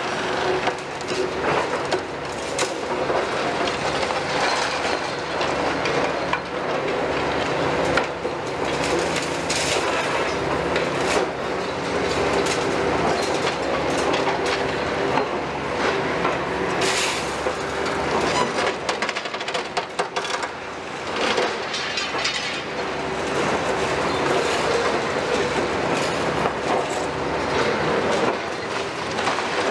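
Hitachi long-reach demolition excavator running steadily while its demolition tool breaks into a building, with repeated cracks and clatters of breaking and falling concrete and rubble.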